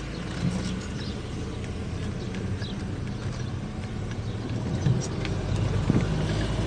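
Car engine and road noise of a moving car: a steady low hum.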